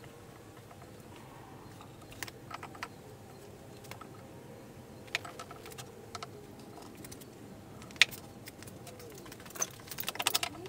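Scattered light clicks and knocks of wooden workbench parts, a glue bottle and a bar clamp being handled, with one sharp knock about eight seconds in and a quick run of clicks near the end as the clamp is handled. A faint wavering tone rises and falls near the end.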